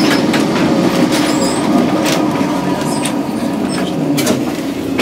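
Old Lisbon tram running along its street track: a steady rumble of motor and wheels on the rails, with occasional sharp clicks and rattles.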